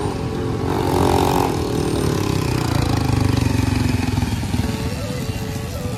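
Motorcycle engines running in street traffic, the engine note swelling about a second in and then falling away.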